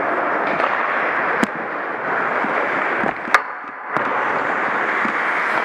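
Ice hockey play heard from ice level: a steady scraping hiss of skates and rink noise, with two sharp cracks of stick and puck about one and a half seconds and three and a half seconds in.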